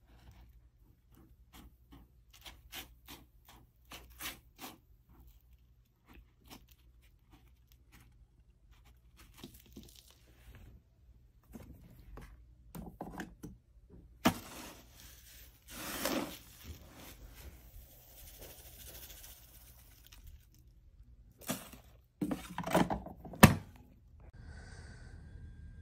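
A cat digging in granular litter in a plastic litter box: a run of quick scratching scrapes of its paw through the litter, then a few louder scraping, rustling bursts around the middle and again near the end.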